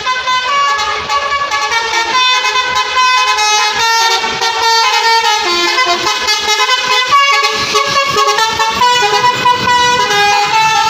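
Bus 'telolet' horn: a set of musical air horns playing a quick tune of shifting notes, loud and unbroken.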